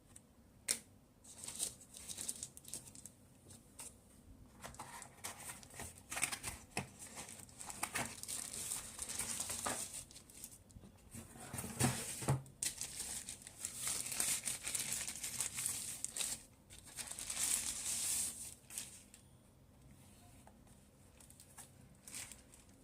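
Keyboard packaging being unwrapped: irregular crinkling and rustling in long stretches, with a sharp click about a second in. It dies down to a few light handling sounds near the end.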